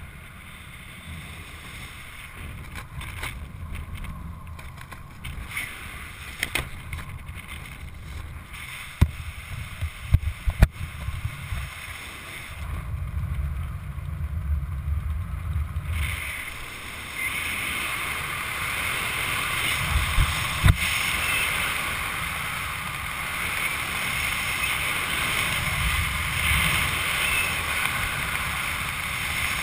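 Wind rushing over the microphone of a camera worn by a skydiver under an open parachute canopy, growing louder from about seventeen seconds on. A few sharp knocks and clicks come about nine to eleven seconds in and once more around twenty seconds.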